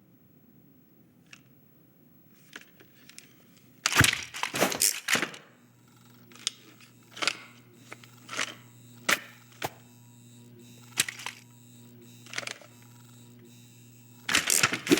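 Cartoon foley of hard plastic toys scuffling. After a few seconds of faint ticks comes a quick flurry of clattering knocks, then single sharp clicks about once a second over a low steady hum, and a second flurry of knocks near the end.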